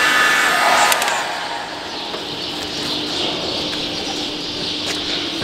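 A handheld electric tool's motor whines steadily, then is switched off about a second in and winds down with a falling pitch. Afterwards a steady low background hum remains, with faint bird calls.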